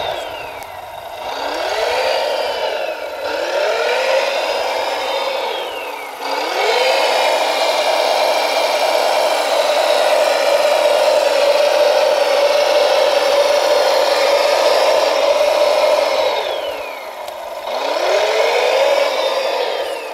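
Radio-controlled scale model Volvo L250G wheel loader running with a mechanical whine that sinks in pitch and climbs back again four times as the machine slows and speeds up, holding one steady pitch for a long stretch in the middle.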